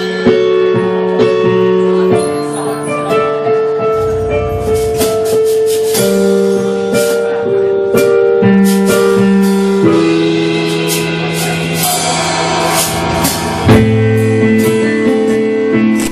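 Live dub band playing: held keyboard-like chords that change every couple of seconds, with cymbal or tambourine strikes over them.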